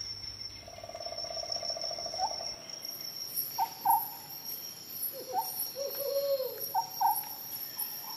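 Short, high-pitched animal calls over a steady cricket drone: one longer buzzy call about a second in, then several short chirps and a falling cry in the second half.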